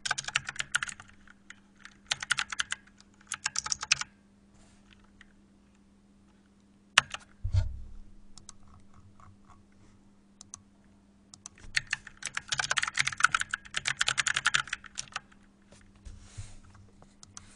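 Typing on a computer keyboard: short bursts of rapid keystrokes in the first few seconds, a pause broken by a single knock about seven seconds in, then a longer run of fast typing in the second half. A faint steady hum runs underneath.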